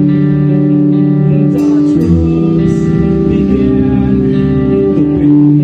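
Live rock band playing in a small rehearsal room: sustained electric guitar chords over bass, moving to a lower chord about two seconds in, with a vocalist singing over it.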